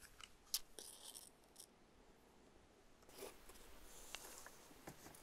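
Near silence with a few faint clicks and a short scratch in the first second and scattered ticks later: a lighter being struck and handled to light a kerosene-soaked rag in the steam motorcycle's burner.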